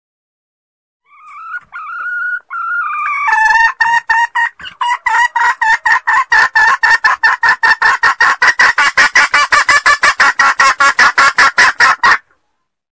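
Junglefowl hen calling, a recording used as a lure for wild males: a short rising note, then a fast, even run of sharp clucks, about five a second, that stops abruptly.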